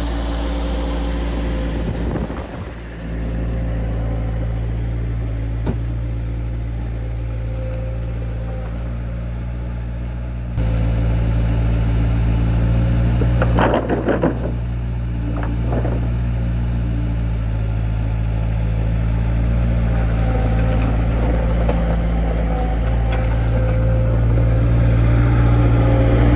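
An engine running steadily at constant speed; it becomes louder about ten seconds in, and a few short knocks are heard around fourteen to sixteen seconds.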